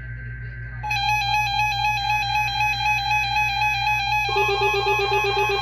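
NOAA Weather Radio weekly test alert signal: buzzy two-tone digital data tones, joined about a second in by a loud, steady electronic alarm tone. About four seconds in, a pulsing lower tone is added.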